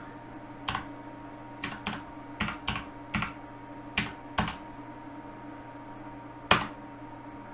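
Computer keyboard keys pressed one at a time, about nine separate keystrokes spread unevenly over several seconds, with the loudest single keystroke near the end. A faint steady hum runs underneath.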